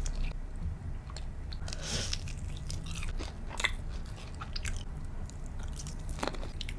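A person biting and chewing food close to the microphone, with scattered short crunches and wet mouth sounds over a low steady hum.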